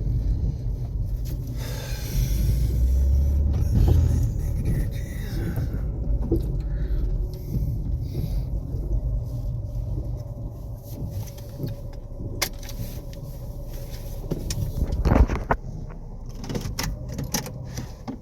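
A car running slowly, heard from inside the cabin as a steady low rumble. There is a hiss a couple of seconds in, and a few sharp clicks and knocks later on.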